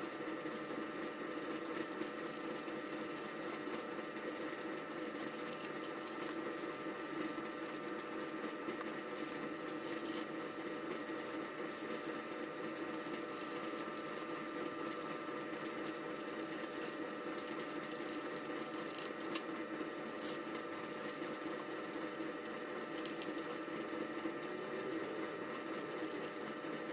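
A steady small-motor hum, unchanging throughout, with faint light scratching and ticks over it.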